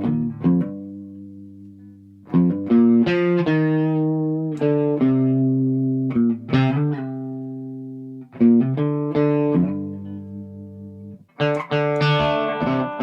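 Gibson Custom SG electric guitar played unaccompanied: picked single notes and short melodic phrases that ring out and fade between attacks, with a fuller strummed chord near the end.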